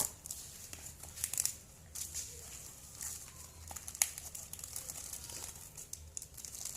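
Plastic parcel packaging crinkling and crackling in irregular handfuls as it is handled and pulled open, with a sharp crackle about four seconds in.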